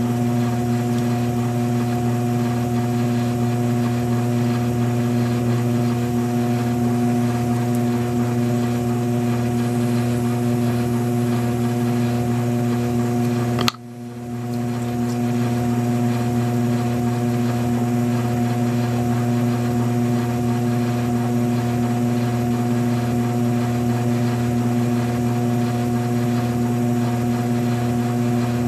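Electric potter's wheel motor humming steadily as the wheel turns. About halfway through there is a sharp click and the hum dips briefly before building back.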